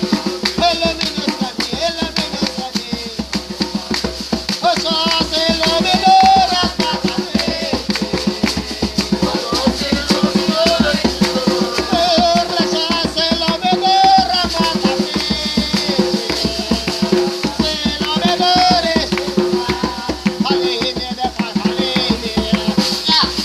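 Music with a fast, steady shaker rhythm, a drum and a melody.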